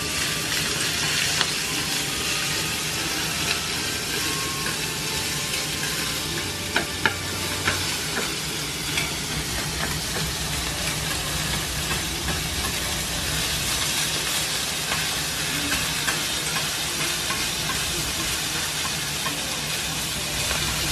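Cabbage and other yakisoba ingredients sizzling steadily on a hot flat iron griddle (teppan) as they are stirred and turned with a metal spatula and chopsticks. A few sharp clicks come about seven seconds in.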